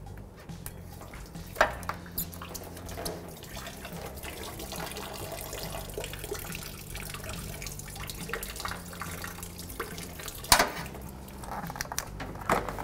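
Engine coolant dripping and trickling from the radiator into a drain bucket, with a few sharp clicks and knocks, the loudest about a second and a half in and about ten seconds in, and several more near the end.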